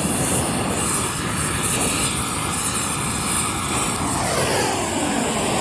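Steady, loud roar of a propane torch burning, heating the rubber subframe bushings to free them from the subframe.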